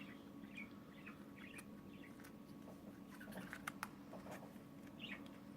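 Faint scattered clicks and light scratchy rustling of small plastic accessory pieces being handled and taken out of a rotary tool kit's case, over a low steady background hum.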